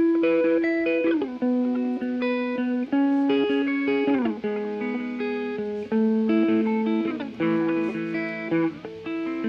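Electric guitar playing an unaccompanied melodic intro, held notes and chords with downward slides between some of them, starting suddenly.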